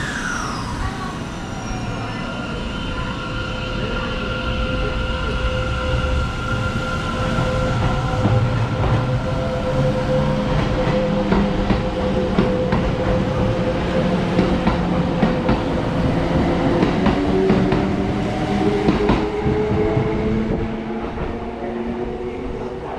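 Kintetsu electric train moving along the station platform: steady electric motor whine, with wheels clattering over rail joints through the middle. Near the end the motor whine rises in pitch as a train gathers speed.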